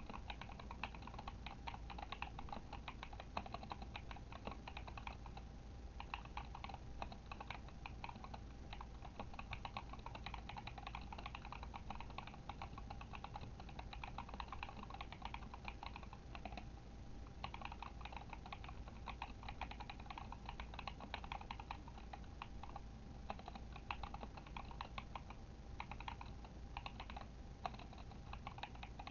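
Continuous typing on a Kemove Shadow mechanical keyboard with tactile Glorious Panda switches. The keys clack in quick, irregular runs, broken by a few short pauses.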